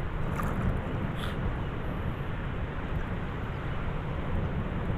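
Wind buffeting the microphone: a steady low rumbling noise, with a couple of faint clicks in the first second or so.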